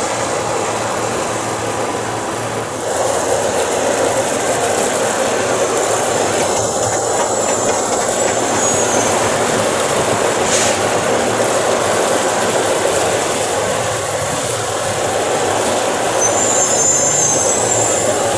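Chicago 'L' rapid-transit train running past on the elevated tracks, a steady rolling rumble with brief high wheel squeals twice.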